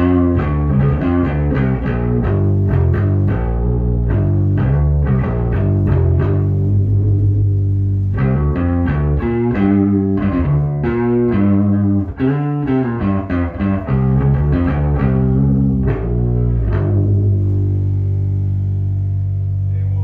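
1976 Rickenbacker 3000 short-scale electric bass played through a tube bass amp and 6x10 cabinet, a run of plucked notes with the volume full up and the tone control set midway, giving a growly, muddy tone. Near the end it settles on one held note that rings out.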